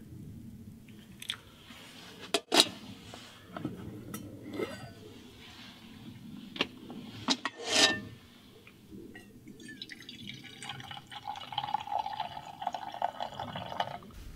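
A few sharp clinks of glasses and dishes, then about three seconds of tea being poured into a glass near the end.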